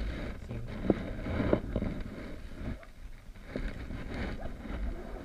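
Wind rumbling on the camera microphone, with a few short knocks from the fishing rod and reel being handled against the camera.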